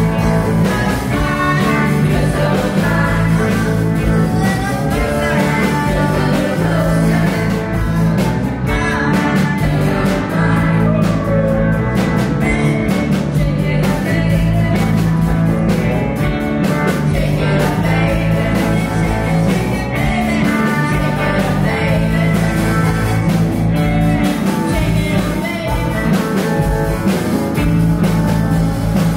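Rock band playing a song live, a singer over electric guitar and band.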